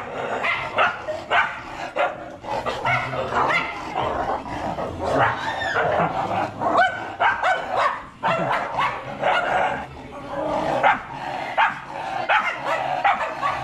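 A dog barking over and over in quick runs of short, sharp barks.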